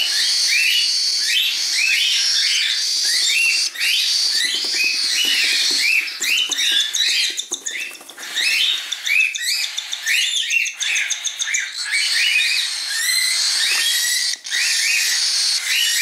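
Cockatiel chick begging for food: a rapid run of short rising chirps, two or three a second, over a steady hiss. The run turns choppy for a few seconds in the middle.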